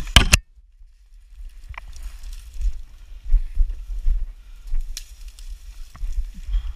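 Dry brush, twigs and branches rustling and scraping as someone pushes on foot through thick, dry undergrowth, with a steady low rumble of handling noise. A single loud, sharp crack comes right at the start.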